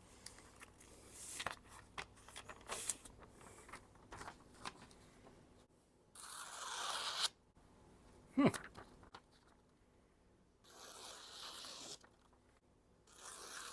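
Paper being sliced by a freshly sharpened steel oboe reed scraping tool: three separate cuts, each a rustling hiss lasting about a second, the first about six seconds in and the other two near the end.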